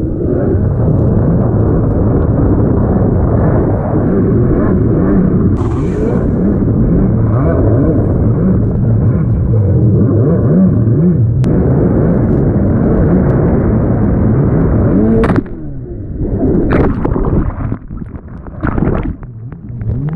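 Rickter MX1 stand-up jet ski engine running hard, its pitch rising and falling with the throttle, mixed with rushing water. About fifteen seconds in the engine drops away, and sharp splashes and short uneven bursts follow.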